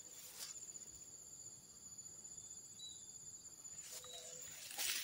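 An insect's steady, high-pitched trill, with a couple of brief rustles about half a second in and near the end.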